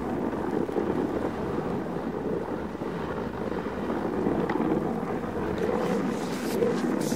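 Husky-drawn dog sled on the move over snow: a steady rushing, scraping noise of the ride, with a couple of short sharper hisses near the end.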